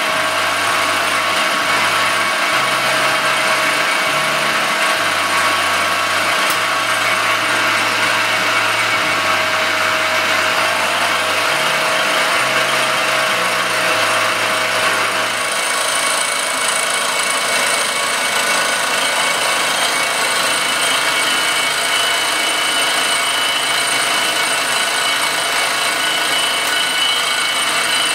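Circa-1948 Gorton 8-1/2D milling machine running, its end mill cutting an aluminum casting: a steady whine and hiss of spindle and cutter in the metal. The tone changes about halfway through, with a higher whine coming in.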